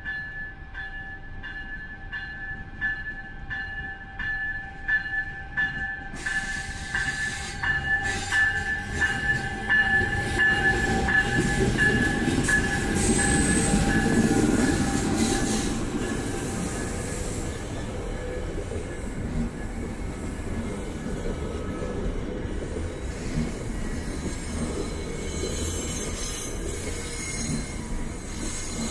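A railroad grade-crossing bell rings about twice a second. From about six seconds in, an NJ Transit commuter train's noise builds over it, loudest around twelve to fifteen seconds in with a brief high wheel squeal. The coaches then roll across the crossing with a steady rumble.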